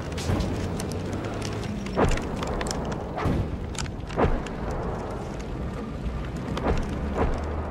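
Burning paper and books: a steady rush of flame with irregular sharp crackles and pops over a low rumble.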